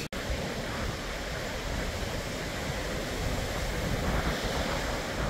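Surf breaking on a sandy beach, mixed with wind buffeting the microphone: a steady rushing noise with no distinct events.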